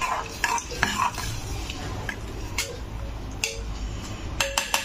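A metal spoon scraping and knocking against the inside of a pressure cooker pot as rice, peas and water are stirred, with a quick run of ringing metallic clinks near the end.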